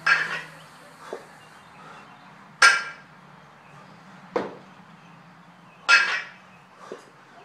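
An 18 kg kettlebell being cleaned and jerked: a string of sharp knocks, three of them with a short metallic ring, at the start, about two and a half seconds in and near six seconds in, with quieter dull thuds between.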